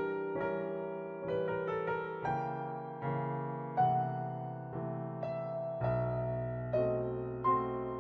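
Background piano music: single notes and chords struck about once a second and left to ring.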